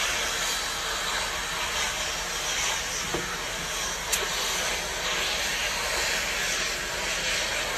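Fire extinguisher discharging in one continuous, loud hiss aimed at a fire, cutting off abruptly near the end.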